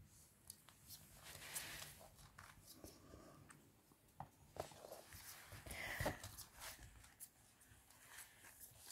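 Faint scattered clicks and scuffs of a ferret scurrying about on a laminate floor, with a brief louder sound about six seconds in.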